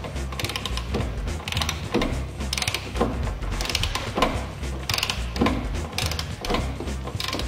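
Ratchet wrench clicking in repeated back-and-forth strokes, about one a second, as it tightens the sprocket retainer nut on a snowmobile's drive shaft.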